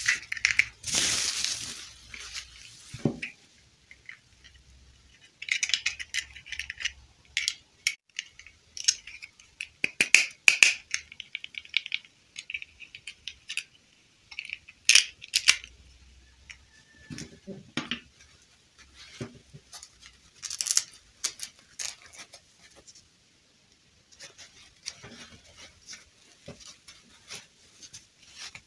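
Hands handling a plastic fashion doll and its dress: irregular rustling of fabric with scattered small plastic clicks and taps.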